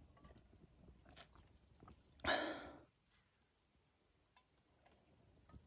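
A person sipping from a metal camping mug, with faint small mouth and swallowing sounds. About two seconds in comes one short, louder breathy sound.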